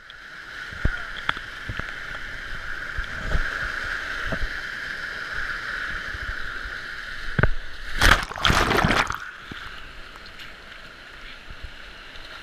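Steady rush of water, with scattered knocks and a louder surge of water noise lasting about a second, some eight seconds in.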